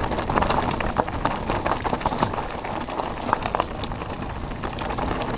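Mountain bike riding down a stony dirt singletrack: a steady rush of tyre and trail noise with frequent sharp clicks and rattles from the bike over rough ground.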